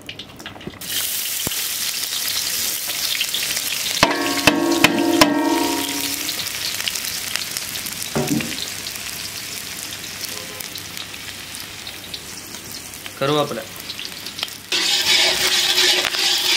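Chopped shallots tipped into hot sesame oil in an iron kadai, sizzling loudly at once and then frying steadily while a ladle stirs them. Near the end curry leaves go into the oil and the sizzle flares up louder again.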